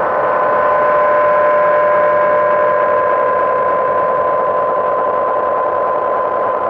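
Background music: a sustained synthesizer drone holding a few steady tones over a soft hiss.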